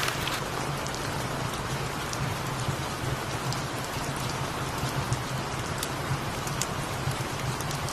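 Steady rain falling on surfaces, with scattered sharp ticks of drops. Underneath runs a low rumble that swells and fades, a cat purring.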